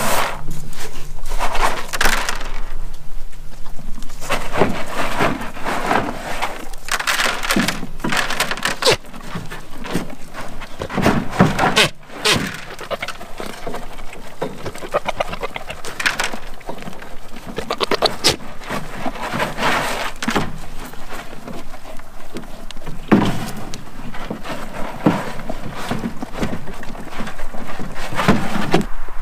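Horse and goats eating grain feed from a bowl set in a plastic feeder tub: irregular crunching, scraping and knocking of muzzles against the bowl and tub. Near the start, feed pours from a plastic scoop into the bowl.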